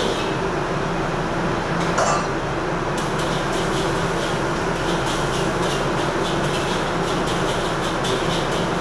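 Wok stir-frying: a metal wok ladle scraping and clinking against the wok, a few separate clinks at first, then several times a second from about three seconds in, over the steady roar of a gas wok burner and the kitchen extraction fan.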